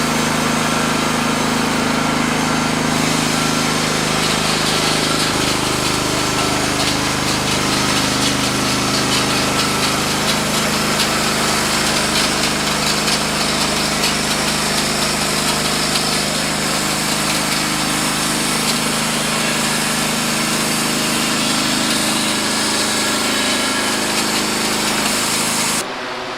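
Wood-Mizer LX55 band sawmill running under load, its engine droning steadily while the band blade saws through a log. The engine note shifts about five seconds in, and the sound cuts off abruptly near the end.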